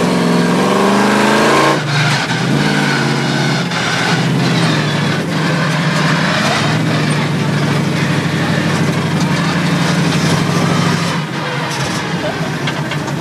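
Monster truck ride truck's engine heard from inside its cab, revving up with a rising pitch over the first two seconds, then running steadily as the truck drives, easing off a little near the end.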